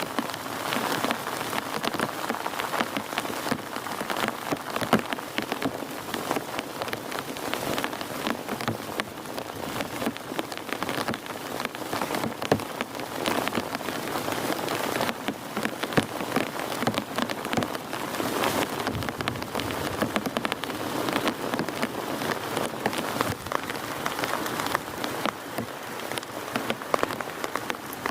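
Heavy rain falling steadily: a dense hiss broken by many sharp, close drop hits on a surface.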